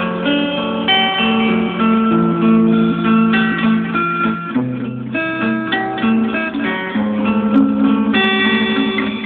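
Instrumental music with plucked and strummed guitar and no singing: the closing instrumental of the song's backing track.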